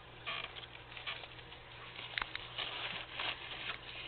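Plastic bag rustling and scraping in short bursts as a hidden animal drags it across the tile floor and under a cabinet door, with a couple of sharp clicks about halfway through.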